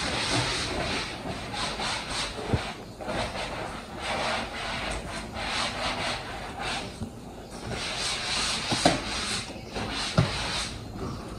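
Cloth rubbing and wiping over a leather sofa in uneven strokes, with a few short knocks about two and a half, nine and ten seconds in.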